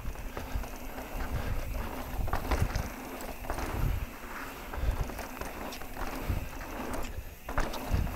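Mountain bike rolling fast over dirt and rock singletrack: tyres crunching on the trail, the bike rattling and thumping irregularly over bumps, with wind noise on the microphone.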